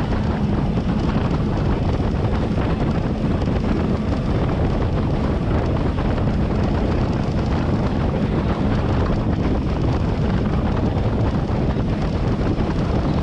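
Steady wind noise buffeting the microphone over a boat's engine running.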